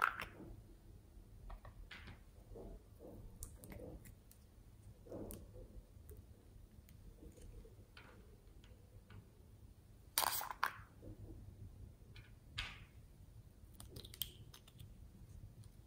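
Small plastic cat-shaped slime containers being handled: a lid snaps open with two sharp plastic clicks about ten seconds in, among soft rustles and fainter clicks. Near the end comes the soft sticky sound of slime being scooped out with a plastic spatula.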